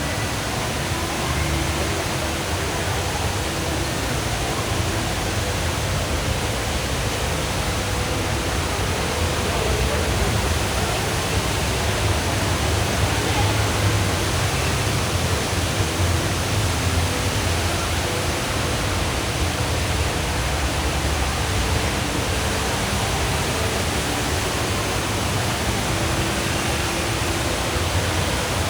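The Rain Vortex, Jewel Changi Airport's indoor waterfall, pouring down into its pool in a steady rush of water, with a murmur of distant voices beneath it.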